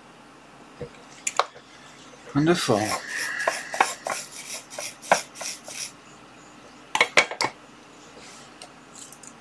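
Soldering iron being put back into its metal stand on an electronics workbench: a quick run of metallic clinks and rattles a few seconds in, then a few sharper clicks about two seconds later.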